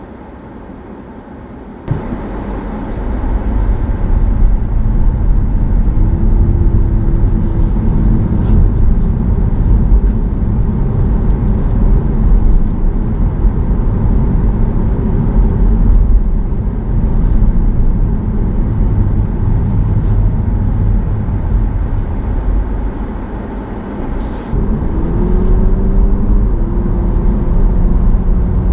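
Honda Civic e:HEV hybrid on the move, heard from inside the car: a steady low rumble of road and drive noise, quieter for the first two seconds and then abruptly louder. A droning tone rises and levels off about six seconds in and again near the end.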